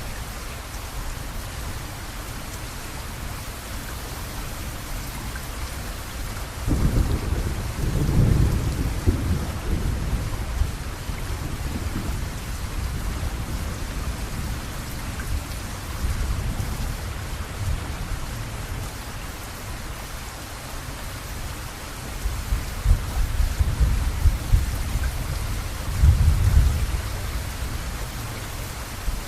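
Steady rain falling, with thunder rumbling low twice: once about seven seconds in and again for several seconds near the end.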